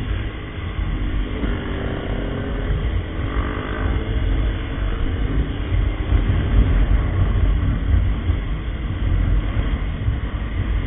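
Small motorcycle engines running in a group ride, their pitch rising and falling, under a heavy, uneven rumble of wind on the microphone of the rider's camera.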